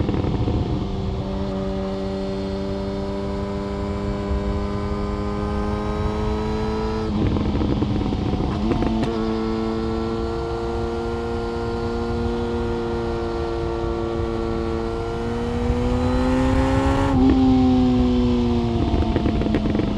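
Yamaha FZ1 Fazer's inline-four engine pulling while riding, with wind rush. The engine note holds fairly steady and rises slowly, with breaks in the note about seven and nine seconds in. It climbs and gets louder from about fifteen seconds in, then breaks off about seventeen seconds in and falls away.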